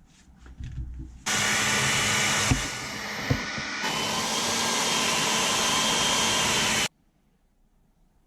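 Electric heat gun switched on and blowing steadily for about five and a half seconds, a rush of air over a steady hum, then switched off abruptly; a few small handling clicks come before it. It is shrinking heat-shrink tubing over the new wire joints to seal them.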